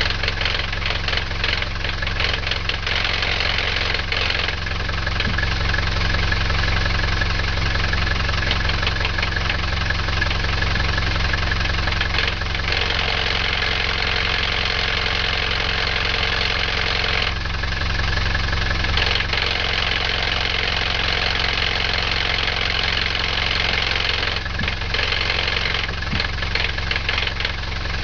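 Mercedes 207D's OM 616 four-cylinder diesel idling, with a clattering rattle from its 711.110 five-speed gearbox, a noise the owner hears at idle and most of all with the clutch pedal pressed. The sound changes character several times.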